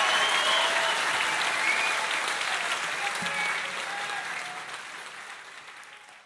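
Concert audience applauding after the last song, fading out steadily to almost nothing by the end.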